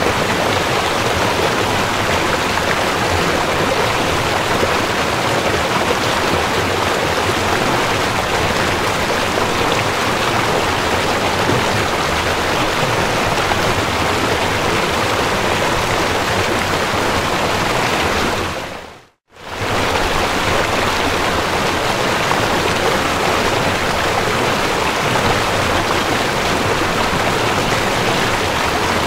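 Steady rushing of a shallow river over gravel. About two-thirds of the way through it drops out for a moment, then fades back in.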